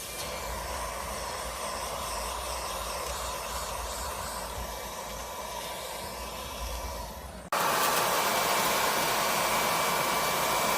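Lubluelu cordless stick vacuum with a brushless motor, running with a steady whir and a faint high whine. About two-thirds of the way in, the sound cuts out for a moment and comes back louder and brighter.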